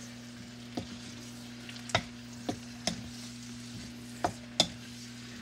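Spatula stirring vegetables in a wok, with a steady sizzle of frying in oil underneath. The spatula knocks sharply against the pan about six times.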